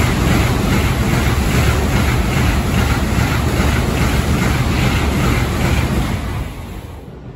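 N700S Shinkansen bullet train passing at high speed without stopping: a loud rushing rumble with a quick, even pulsing, about three beats a second, as the cars go by. It dies away about six and a half seconds in as the tail passes.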